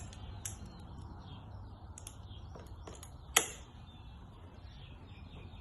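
A few sharp metallic clicks and taps from multi-grips and steel saddle screws being handled, one louder knock about three and a half seconds in. Faint bird chirps sound in the background.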